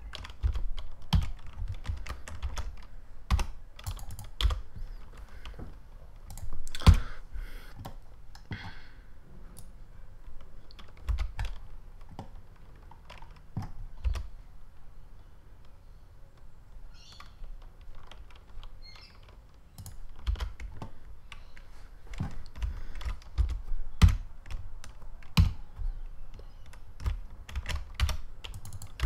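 Computer keyboard keys being pressed: irregular single taps with pauses between, sparser in the middle stretch.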